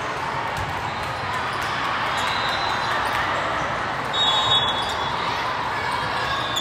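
Volleyball serve and rally in a large hall: ball hits over a steady din from many other courts and voices. Short, high squeaks come about two and four seconds in.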